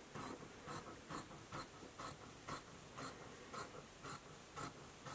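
Dressmaker shears snipping through polyester fleece in a steady run of short, faint cuts, about two a second.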